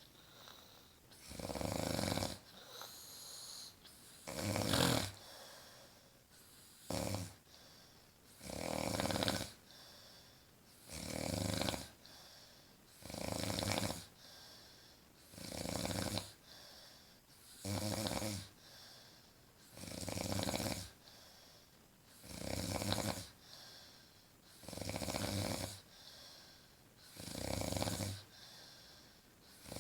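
A sleeping woman snoring in a steady rhythm: one snore every two to two and a half seconds, each lasting about a second, with quieter breathing between.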